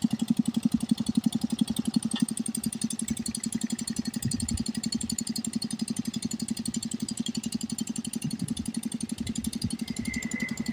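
A hand tractor's single-cylinder diesel engine chugging steadily under load as it drags a wooden levelling board through paddy mud. It grows quieter as it moves away, and a brief high chirp comes near the end.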